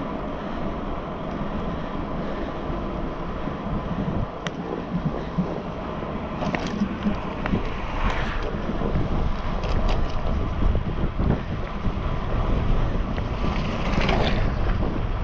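Wind buffeting the microphone of a handlebar-mounted camera on a moving bicycle, with steady tyre and road rumble and a few brief swishes.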